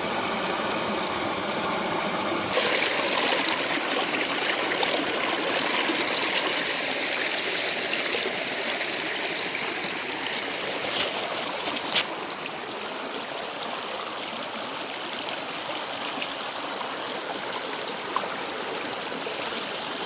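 Steady rush of running water, like a stream, growing louder about two and a half seconds in, with one brief click a little past the middle.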